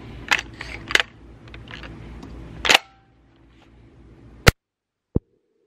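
Metallic clicks and clacks of an Emperor AR-style 12-gauge shotgun being handled, with a louder clack a little under three seconds in. About four and a half seconds in comes one sharp, loud crack, the loudest sound, followed by a small click.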